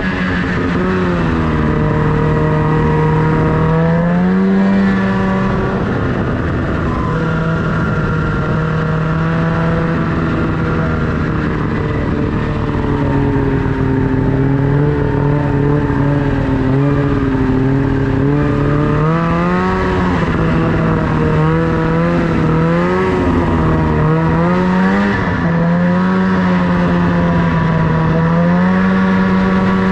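Snowmobile engine running under throttle, its pitch rising and falling several times as the rider opens and eases off the throttle.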